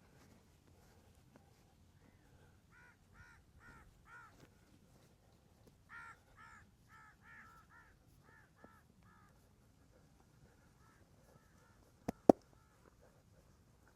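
A bird calling in two runs of short, harsh repeated calls, about four and then about seven. Near the end come two sharp cracks in quick succession, much louder than the calls.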